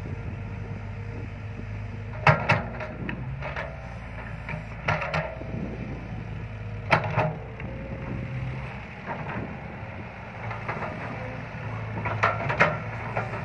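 Tracked excavator's diesel engine running steadily at a working pace, with sharp metal clanks from the machine in small groups several times as it digs and moves.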